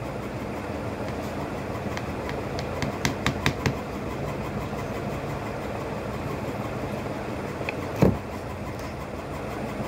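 Light clicks and taps of a metal spoon against a plastic chocolate mould: a quick cluster about three seconds in and one sharper knock near the end, over a steady background hum.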